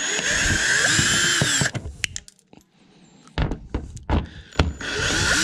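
Power drill-driver backing out T20 Torx screws: two runs of steady motor whine, the first about a second and a half long and the second starting a little past halfway. Short clicks and knocks come between the runs.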